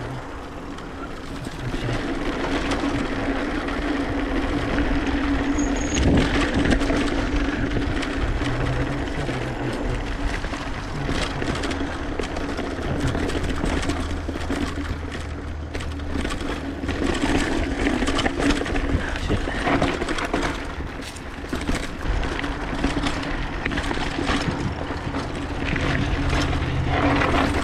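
Mountain bike being ridden along a dirt trail: steady rolling noise with a low hum, and frequent knocks and rattles as the bike goes over bumps.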